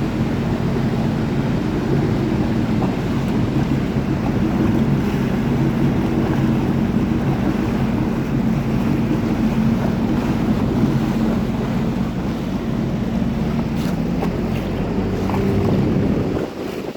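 Boat motor running steadily with a low hum, over rushing water and wind on the microphone; the motor sound drops away just before the end.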